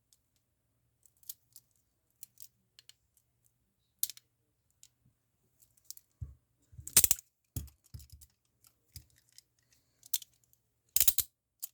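Gold-plated Peerless 700 steel handcuffs being handled: scattered small metallic clicks and clinks, with a few louder knocks in the second half.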